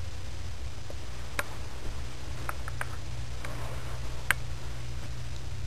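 Steady low hum with a handful of short, sharp clicks scattered through the middle, the loudest a little after four seconds in.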